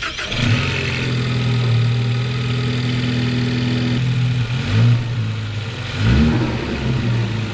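Ford Focus ST's turbocharged 2.0-litre EcoBoost four-cylinder, through a Borla cat-back exhaust, catching just after a start and settling into a steady idle, then revved briefly twice, about five and six seconds in.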